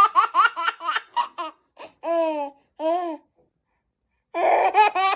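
A baby laughing hard at a pretend sneeze: a quick run of high-pitched laughs, two longer squealing laughs about two and three seconds in, a short pause, then another run of laughter near the end.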